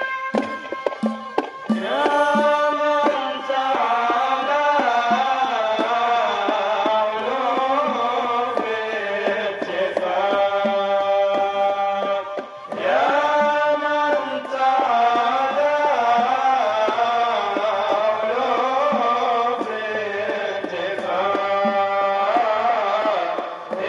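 Sufi devotional chanting: men's voices singing a melodic chant together in long phrases, with a hand drum beating under it. The singing breaks off briefly a couple of times between phrases.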